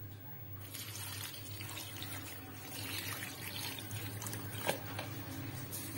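Water pouring steadily from a jug into a pot of soaked lentils, chopped vegetables and spices, starting a little under a second in. A couple of light knocks near the end.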